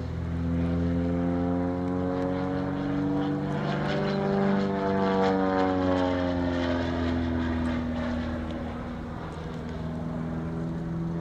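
Single-engine propeller aerobatic plane flying overhead, its engine and propeller note shifting in pitch as it manoeuvres. It is loudest around the middle and eases off a little after two-thirds of the way through.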